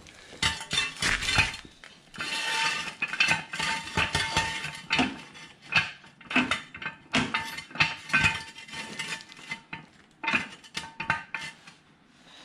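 Steel jack stand clanking and clinking as it is set down and positioned under the ATV, with many sharp metal knocks, some scraping and a faint ring from the steel.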